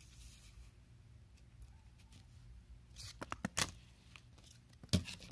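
Plastic coin flips being handled: soft crinkles and clicks, a cluster of them about three seconds in and one sharp click near the end, over quiet room tone.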